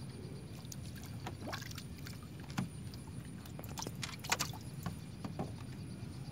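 Small boat rocking on the river, water sloshing against the hull under a steady low rumble, with several sharp knocks and taps on the boat, the loudest about two and a half and four and a half seconds in.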